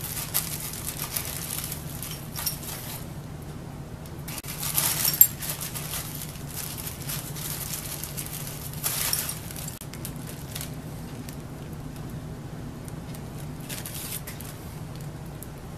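A clear plastic zip bag crinkling as a hand rummages through it, with small steel bolts and screws clinking together, in several bursts and one sharp click about five seconds in. A faint steady hum runs underneath.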